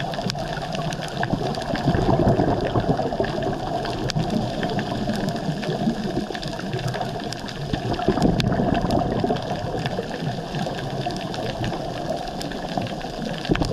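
Underwater sound picked up by a camera on a coral reef: a steady rushing, bubbling water noise that swells louder about two seconds in and again about eight seconds in, with scattered sharp clicks throughout.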